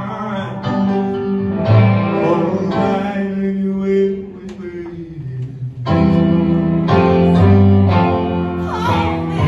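Live soul music: singing over keyboard accompaniment. It eases quieter a little past halfway, then swells back up to full volume.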